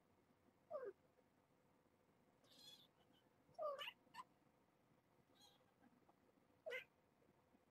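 Cat meowing: three short meows about three seconds apart, with a brief chirp just after the second.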